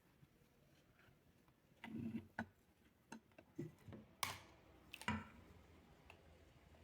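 Faint handling of felt and stuffing: a few small scattered clicks and brief rustles.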